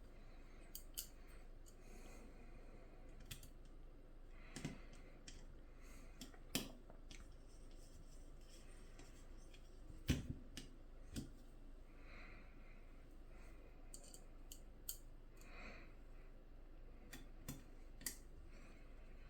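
Scattered faint clicks and taps of small plastic and metal parts being handled while a QNAP PCIe M.2 NVMe expansion card is put together, with one sharper knock about ten seconds in.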